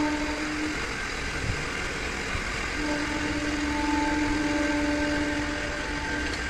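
Workshop machine running steadily, with a humming tone that drops away about a second in and comes back about three seconds in.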